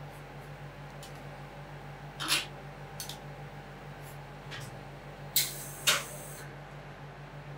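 Metal spatulas scraping and tapping on a rolled-ice-cream cold plate: a few short strokes, then a louder scrape with a sharp tap about five and a half seconds in. A steady low machine hum runs underneath.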